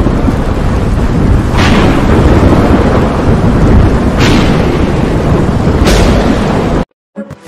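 Thunderstorm sound effect: a loud, continuous rumble with rain-like hiss, broken by three sharp thunder cracks, the loudest about a second and a half, four and six seconds in. It cuts off suddenly about seven seconds in, and guitar music begins just after.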